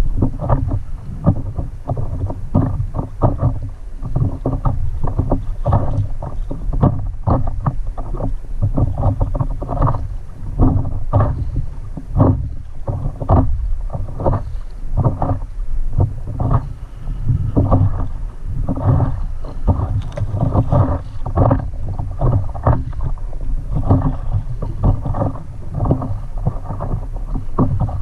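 Small choppy waves sloshing and slapping against a stand-up paddleboard in many short, irregular splashes, with wind rumbling on the microphone.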